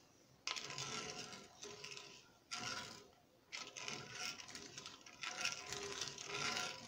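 A plastic spoon stirring water, sugar and cinnamon sticks in a metal pot, scraping against the pot and sloshing the liquid. It starts about half a second in, with a short pause near three seconds.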